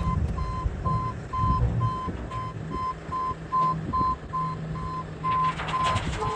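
Backup alarm on a piece of heavy equipment beeping steadily, about two beeps a second, over a diesel engine running. Near the end a rushing, scraping noise swells in.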